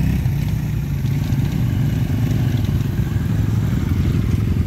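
Quad bike engine running steadily in quick, even pulses.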